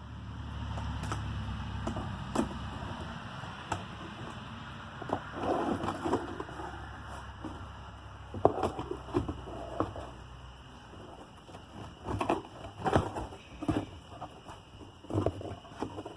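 A box being opened and its contents handled: scattered knocks, clicks, scrapes and rustling at an irregular pace, over a low rumble in the first few seconds.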